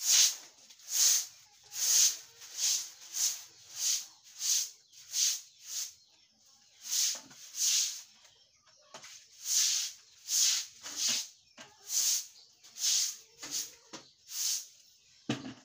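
A traditional grass hand broom swishing across a wet concrete yard in brisk, regular strokes, about one to two a second, with a short break a little before the middle.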